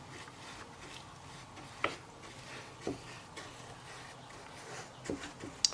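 Faint light taps and clicks of small objects being handled, four or five in all, over a low steady hum of room tone.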